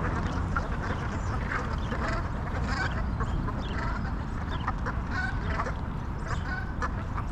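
A flock of ducks on the water quacking and calling in many short, overlapping calls, over a steady low rumble.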